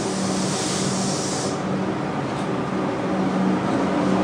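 Comeng electric suburban train pulling away from the platform, with a steady electrical hum. A hiss stops about a second and a half in, and the train's noise grows louder toward the end as it gathers speed.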